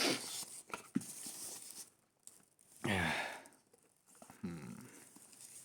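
Packaging rustling and crinkling, with a few sharp clicks, as a mouse and its cable are handled and unwrapped. A short wordless voice sound about three seconds in, and another near the end.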